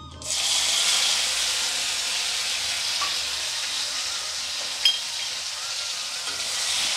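Chopped tomatoes dropped into hot tempering oil with jakhya and cumin seeds in a kadhai: the oil bursts into a loud sizzle a moment in and keeps up a steady frying hiss. A short click sounds about five seconds in.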